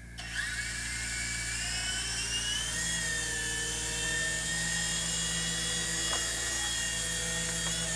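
Electric motors and rotors of a GT-3386 mini infrared toy helicopter spinning up about half a second in with a rising whine. They then run on as a steady high whine whose pitch wavers a little as the throttle is worked.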